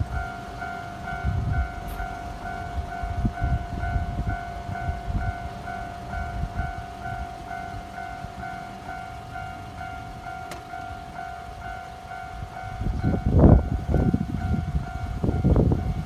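Japanese level-crossing warning bell ringing with its rapid, evenly repeating electronic ding. Irregular low rumbles run underneath and are loudest near the end.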